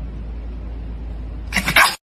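Pomeranian giving a short, loud yap near the end, over a steady low hum.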